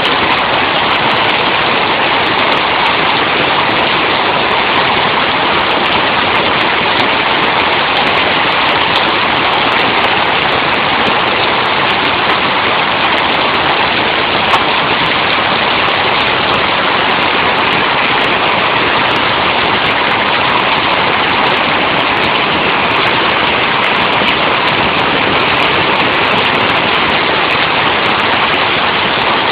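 Hailstorm: hail and heavy rain pelting down hard in a steady, unbroken hiss, heard through a mobile phone's microphone.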